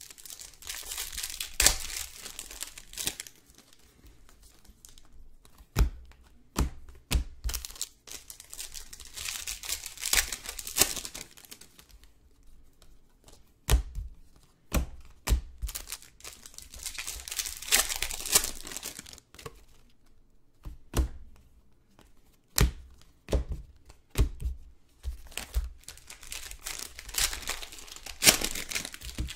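Basketball trading card packs being torn open, the plastic wrappers crinkling in bouts roughly every eight seconds, with sharp clicks and taps of cards being handled in between.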